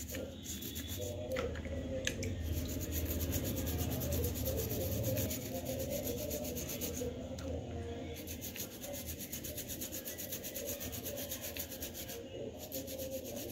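Wet fingers rubbing and scraping the fleshy husk off a rudraksha seed, a steady rasping rub.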